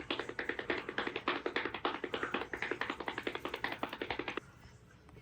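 A fast, even run of short tapping clicks, about seven or eight a second, that stops abruptly about four and a half seconds in.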